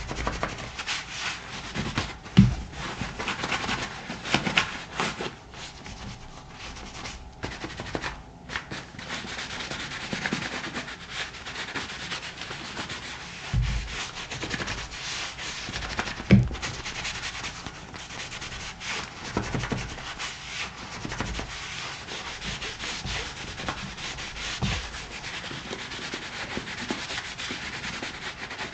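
Buffing glove rubbing over the black leather of a Thorogood moc toe boot after shoe cream, a continuous scratchy rub with a few low thumps from handling the boot.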